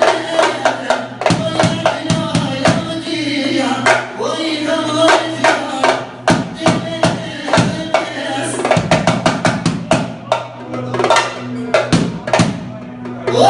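Music with a steady drum and percussion beat under a shifting melody line.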